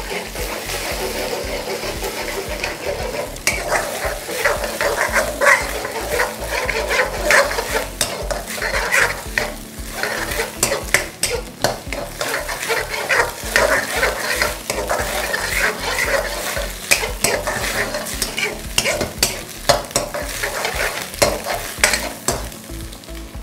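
Eggs sizzling in hot oil in a black wok while a silicone spatula stirs and breaks them up into scrambled eggs. From about three seconds in, many quick scrapes and clicks of the spatula against the pan sound over the sizzle.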